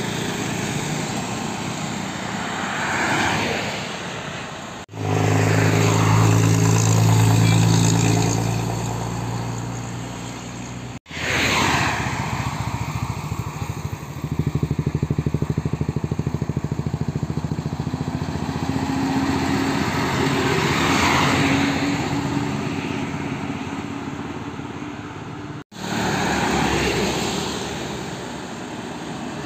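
Highway traffic passing close by: trucks and cars going past, their engine hum and tyre noise swelling and fading as each one goes by. The sound breaks off abruptly three times.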